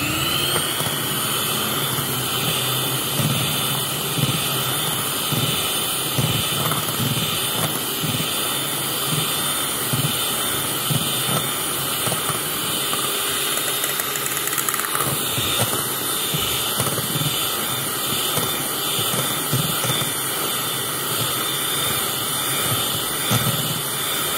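Electric hand mixer switching on, its whine rising briefly as the motor spins up, then running steadily at speed as its twin beaters churn a thick cream mixture.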